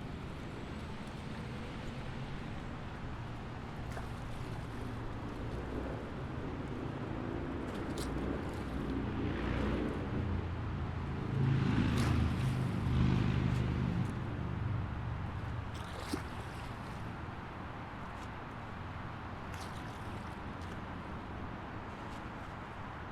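Highway traffic: steady road and tyre noise with a low engine drone. It swells to its loudest about halfway through, as a vehicle passes close, then falls back.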